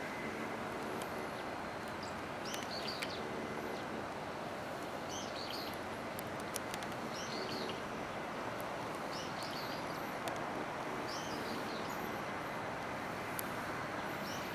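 A small bird chirping in short bursts every second or two, over a steady background of outdoor noise.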